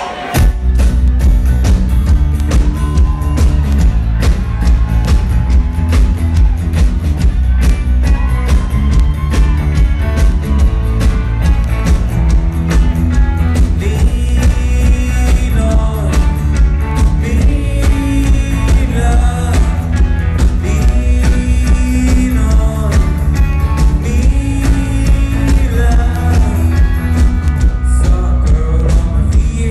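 Rock band playing live, loud and bass-heavy with a steady drum beat, starting suddenly about half a second in.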